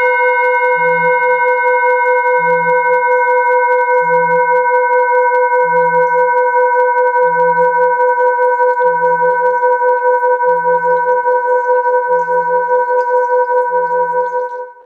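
Singing bowl ringing with a sustained, slightly wavering tone, under a soft low sound that repeats about every second and a half. The sound fades out near the end.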